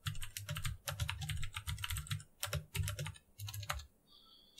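Typing on a computer keyboard: quick runs of keystroke clicks with short gaps, then a brief pause near the end.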